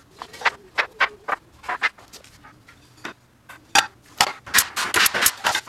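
Pine boards knocking and clacking against each other as slats are laid in place on a wooden frame: a run of irregular sharp knocks, coming thick and fast about four seconds in.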